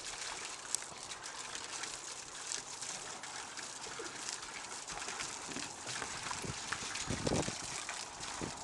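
Water trickling and splashing as a thin stream from a hose runs into a plastic stock-tank pool, with dogs wading and sloshing in the shallow water. A brief louder noise comes about seven seconds in.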